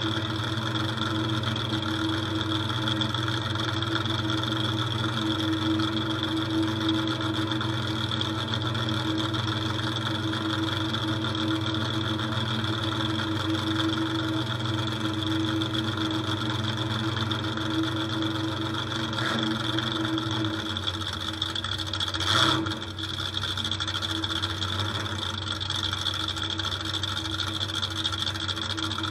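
Demolition derby truck's engine idling steadily, heard from inside the stripped cab. About two-thirds of the way through its low note drops slightly, and a single thump follows a couple of seconds later.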